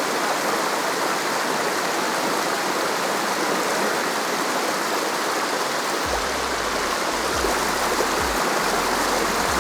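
Steady rushing of flowing water from a stream or waterfall, with some low rumbles from about six seconds in.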